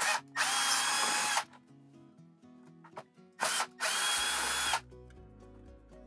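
Cordless drill-driver backing out screws from an RV air-conditioner ceiling assembly: two runs of about a second each, each led by a short blip, with a steady motor whine.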